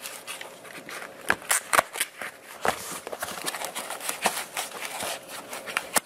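Hands working a split sleeve of foam pipe insulation onto a plastic landing-gear leg: scattered rubbing, rustling and small clicks, with the sharpest clicks between about one and two seconds in.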